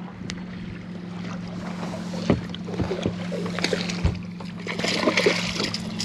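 A hooked speckled trout being landed at the boat: water splashing and a few knocks on the hull, the splashing busiest in the last couple of seconds, over a steady low hum.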